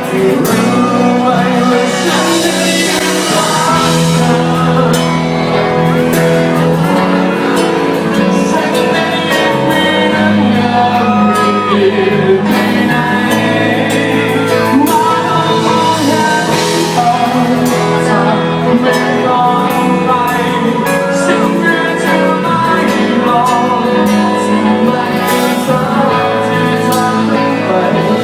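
A singer performing a song live with band accompaniment, recorded on a phone's microphone.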